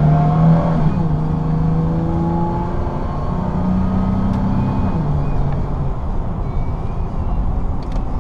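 2003 Toyota Tacoma engine pulling hard under heavy acceleration, heard from inside the cab. The automatic transmission shifts up about a second in and again about five seconds in, and the engine note drops at each shift before climbing again.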